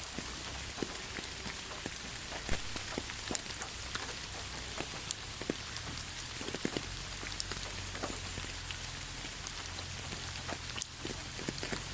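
Steady rain falling on a surface, a continuous hiss with many distinct drops ticking and plinking close by.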